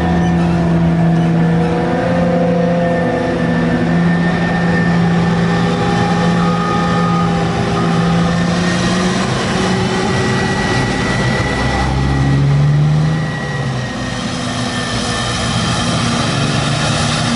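Heavy diesel farm machinery running under load: a forage harvester chopping maize with tractors and silage wagons alongside. The engine note is steady, rises briefly about twelve seconds in, then drops a little.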